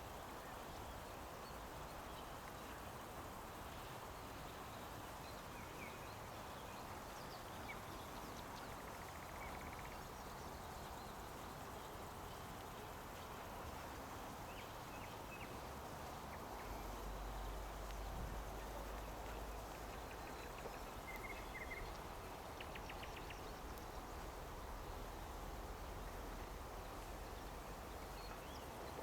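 Faint, scattered bird calls, short chirps and a quick rattling series, over a steady background hiss. A low rumble like wind on the microphone comes in a little over halfway through.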